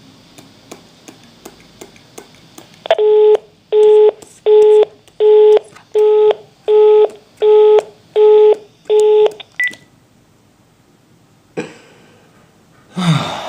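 Phone line after the other end hangs up: faint clicks, then nine evenly spaced beeps of one low tone, about one every three-quarters of a second, the engaged (busy) tone of a dropped call. It ends with a click.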